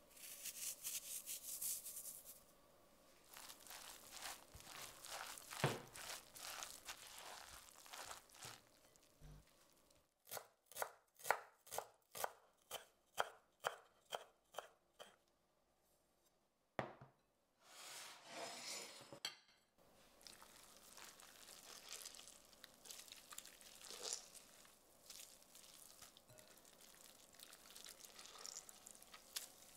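Kitchen knife chopping fresh dill on a bamboo cutting board, a run of crisp, even strokes about two a second. Later come soft wet squelches from hands squeezing the water out of grated zucchini.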